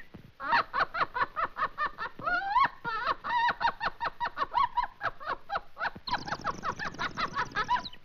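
Cartoon bird vocal effect: high, pitched squawking chatter in quick strokes about five or six a second, with a rising squawk about two seconds in. It turns denser and harsher over the last two seconds.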